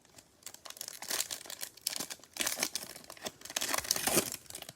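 Foil trading-card pack wrapper crinkling and tearing as it is opened by hand, an irregular papery crackle.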